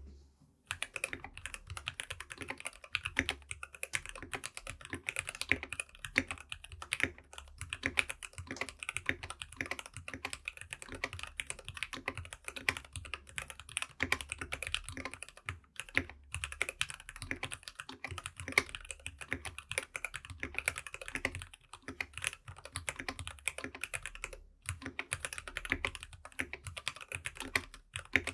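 Typing on a stock Keychron K6 Pro mechanical keyboard with Gateron Red Pro linear switches: a rapid stream of keystroke clacks, with brief pauses a little past halfway and near the end.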